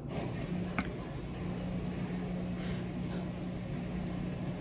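Room tone: a steady low electrical hum with faint background hiss, and one faint click about a second in.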